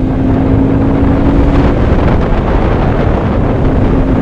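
Motorcycle engine running at steady road speed under heavy wind buffeting on the microphone. A steady engine note fades out about halfway through and comes back near the end.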